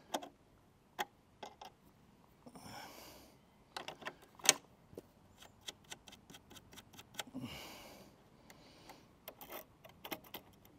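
Scattered metal clicks and taps of a spanner working the cylinder drive-belt tensioner on an Atco Balmoral cylinder mower, with one sharp click about halfway and a quick run of ticks near the end. The belt tension is being backed off so that the cutting cylinder free-spins.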